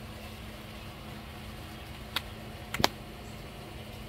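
Steady hum of a mass of honeybees buzzing over an open hive, with two sharp clicks, one about two seconds in and one near three seconds.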